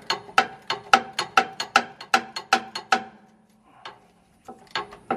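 Socket ratchet clicking fast and evenly, about five clicks a second, as it spins out an oil pan drain plug. The clicking pauses about three seconds in, then starts again.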